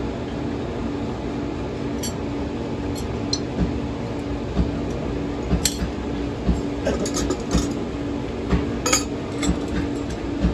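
A blacksmith's iron tongs and rods clinking against each other as they are handled, a few sharp clinks scattered through, over a steady low hum.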